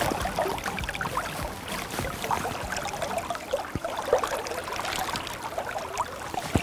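Shallow river water running and splashing around a wading angler, with short irregular splashes at the surface.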